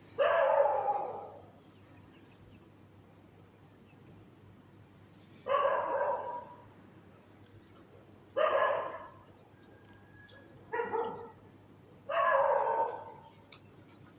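A dog barking loudly, five single barks a few seconds apart, each lasting about a second.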